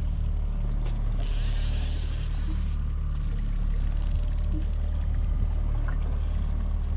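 Charter boat's engine running steadily with a low hum, with a brief high hiss about a second in and faint scattered ticking on top.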